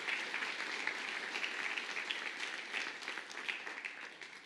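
A hall audience applauding, a dense patter of many hands clapping that eases off a little toward the end and then cuts off abruptly.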